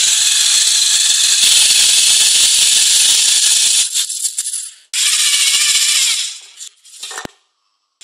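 A Lego Mindstorms NXT robot's tracks and gear motors rattling as it drives across a wooden table. The rattle stops about four seconds in, comes back a second later, then dies away into a few short rattles.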